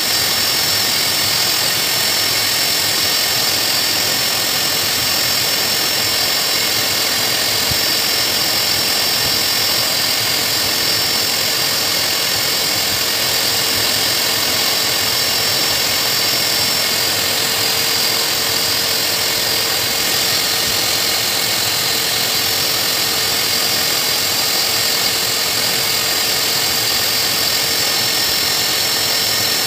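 Hose-type pet blow dryer running steadily with a high whine, its air stream blowing on a Saint Bernard's coat.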